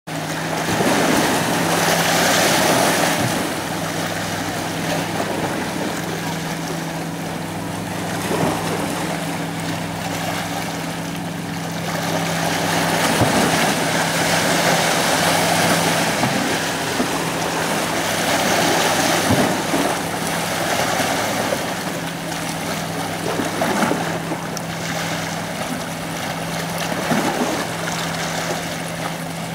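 Sea waves washing against rocks, swelling and easing every few seconds, over a steady low hum.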